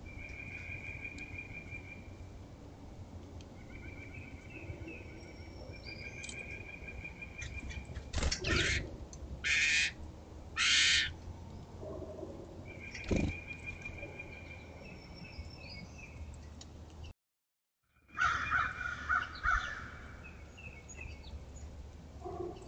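Songbirds at a backyard feeder: a high, even trill repeats several times, broken by three loud, harsh calls about eight to eleven seconds in and more harsh calls after the sound drops out briefly near the end.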